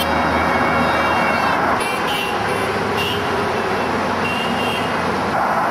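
Road traffic passing, with car horns honking in support: one long honk at the start, then several shorter ones.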